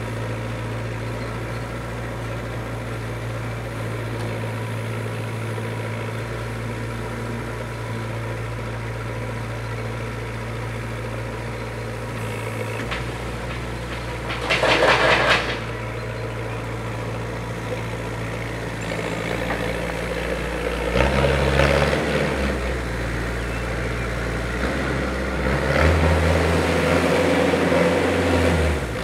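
Norcar A72 mini loader's engine running steadily, with a short loud clatter about halfway through as a bucket load is tipped into the truck's bed. Near the end the engine rises under load twice as the loader works and backs away.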